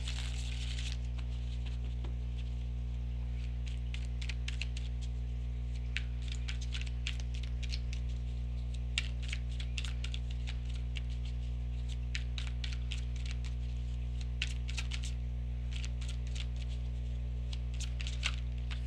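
Tarot cards being shuffled and drawn: scattered light clicks and flicks of card stock, over a steady low electrical hum.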